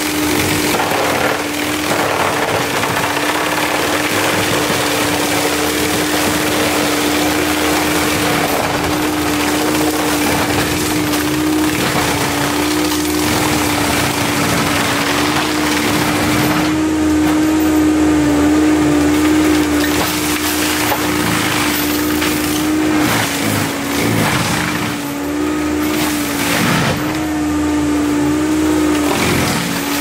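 Forestry drum mulcher on a Cat 299D3 compact track loader, grinding brush over the loader's diesel engine: a loud, steady hum from the spinning cutter drum. A few times near the end the hum dips briefly in pitch as the drum bogs into the material.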